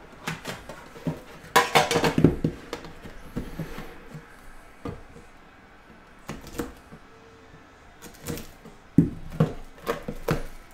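Metal tin of an Upper Deck The Cup hockey box being handled and opened: the lid and its contents clink and clatter in several bursts of sharp clicks, loudest about two seconds in, with another flurry near the end.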